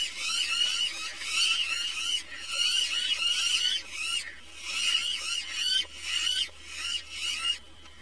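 Animal calls: rapid, high chirping notes packed into about eight bursts, each under a second long, separated by short gaps.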